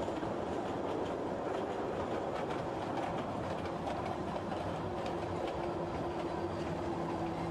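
Kurobe Gorge Railway narrow-gauge train running, heard on board: a steady rumble of wheels on track with light clicks over rail joints. A faint steady tone joins about halfway through.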